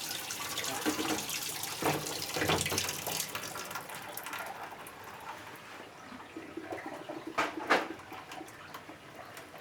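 Water running and splashing in a twin-tub washing machine's tub as the tub is rinsed clean, dying away about halfway through. Two sharp knocks follow close together near the end.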